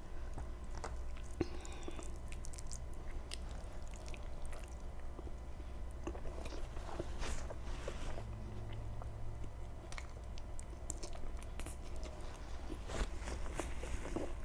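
A person chewing and biting food close to the microphone, with scattered small crunches and wet mouth clicks, over a faint steady low hum.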